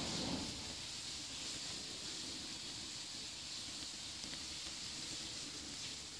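Steady faint hiss of background room tone, with a brief soft rustle right at the start.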